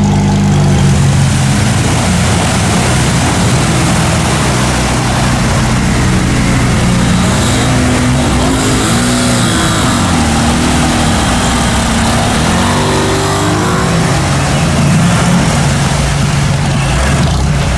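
Off-road vehicle's engine running loud under load. It is steady at first, then revs up and down repeatedly in the middle before settling again, over a constant hiss.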